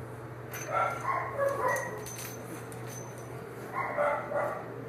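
A dog vocalising in three short bouts over a steady low hum.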